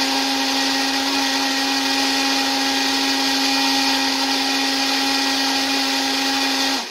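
Willsense personal blender motor running steadily at one even pitch, churning a thick green smoothie filled to the brim, then cutting off suddenly near the end.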